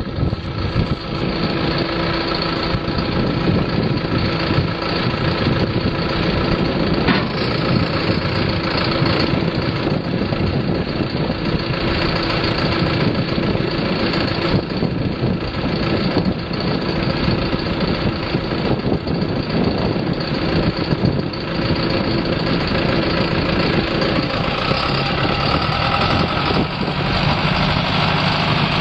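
2008 John Deere 6430 tractor's 4.5-litre four-cylinder diesel engine running steadily, its note changing slightly about 24 seconds in.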